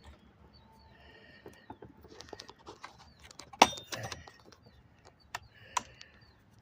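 Chainsaw side cover being worked onto the bar mounting studs: scattered clicks and knocks of the cover and parts shifting against the bar and chain, the sharpest knock a little over three seconds in.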